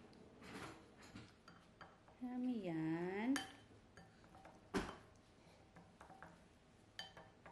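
A plastic spoon scraping and clinking in a bowl as food is stirred and scooped, with a sharp clink about five seconds in. A short wordless voice sound dips and rises in pitch around the three-second mark.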